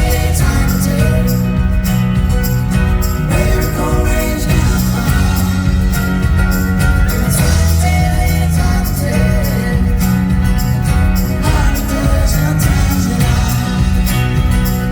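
Loud live band music: a folk-pop song with a steady bass line, guitars and percussion.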